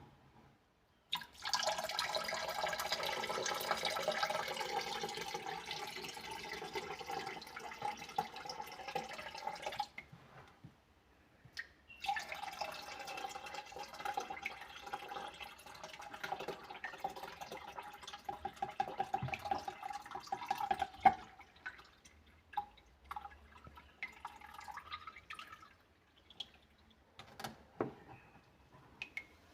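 Water pouring into a drain in two spells of about nine seconds each, with a steady ringing note. Between and after the spells come scattered drips and small splashes.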